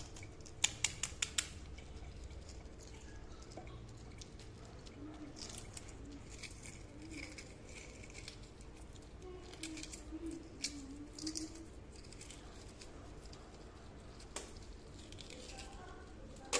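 Cooled steamed eggs being cracked and peeled by hand: a quick run of sharp taps about a second in, then scattered faint crackling and scraping of shell.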